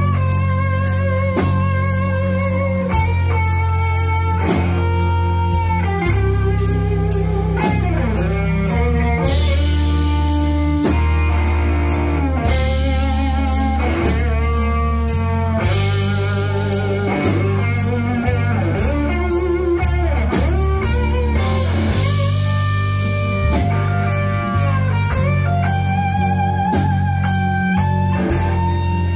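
Live blues band playing: electric guitar leading with bent, wavering notes over electric bass and drum kit keeping a steady beat.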